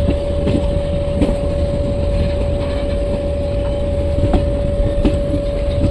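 Indian Railways Garib Rath express train running at speed: a steady rumble of wheels on the rails, a constant high whine, and a few sharp clicks.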